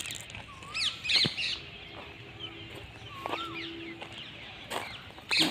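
Outdoor birdsong: a whistled call that rises and falls, repeated a few seconds apart, with higher chirps in between. A few short sharp knocks or rustles stand out above it, about a second in and again near the end.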